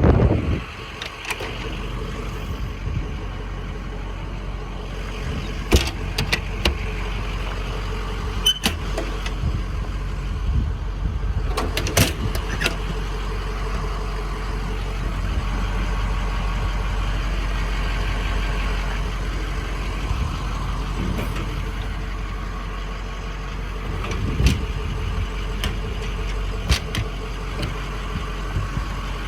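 Ford 6.0 Power Stroke V8 diesel idling steadily, with a few sharp clicks or knocks over it.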